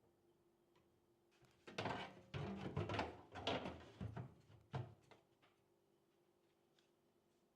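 Computer hardware being handled and fitted during a PC build: a run of knocks, clicks and clattering from about a second and a half in until about five seconds in.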